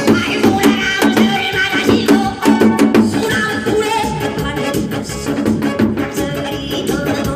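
Janggu hourglass drum beaten in a fast, dense rhythm within lively pumba-style music, with pitched melodic accompaniment.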